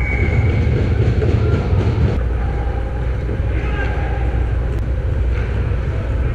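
Ice hockey game sound heard from a goal-mounted action camera: a steady low rumble of rink noise with a few sharp scrapes and clacks of skates and sticks on the ice, and distant players' voices.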